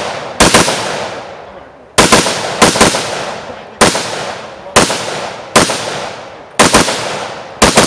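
String of semi-automatic rifle shots from an AR-style rifle, about ten at roughly one a second with some fired in quick pairs, each shot followed by a fading echo.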